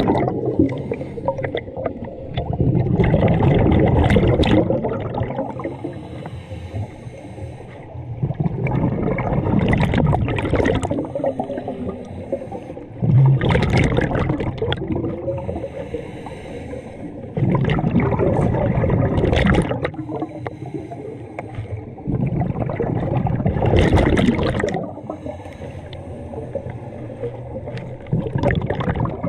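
Scuba diver breathing through a regulator underwater: loud bursts of exhaled bubbles about every five seconds, with a fainter hiss of each inhale between them.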